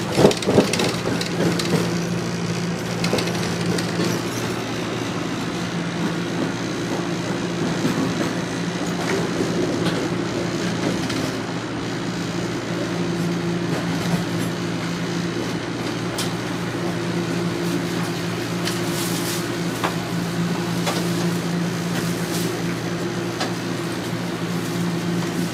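Toronto Rocket subway car heard from inside while running on the line: a steady hum over running noise, with a few short clicks in the second half.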